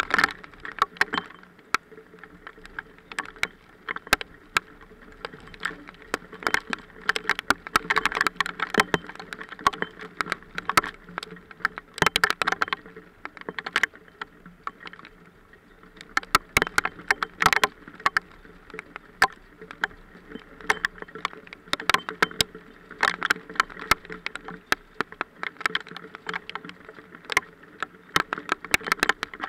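Hail pelting down: a dense, irregular patter of sharp clicks and taps, over a steady low hum.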